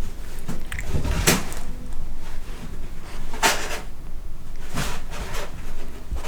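Cats at play, scuffling and bumping against surfaces: three short rustling, knocking bursts over a low rumble.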